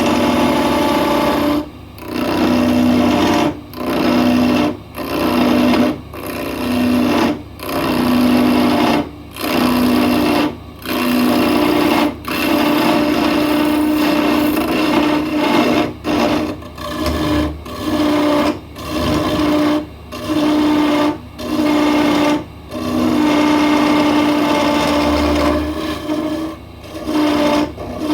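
Electric woodworking power tool running in short spells of about a second, stopping and starting again about twenty times with a steady motor hum.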